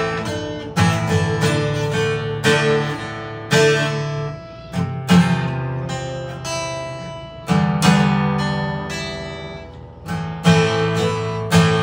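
Acoustic guitar strummed one chord at a time, each chord ringing out and fading before the next, at an uneven pace with longer pauses near the middle.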